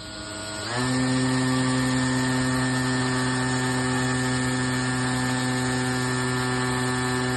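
Electric motor and propeller of a model Cessna airplane running: it spools up quickly about a second in, holds a steady, even hum, and is cut near the end, winding down in pitch.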